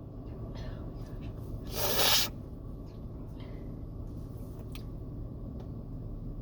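A person's short, hissing burst of breath about two seconds in, in the middle of a sneezing fit, with a few fainter breaths and a light click over a steady low hum.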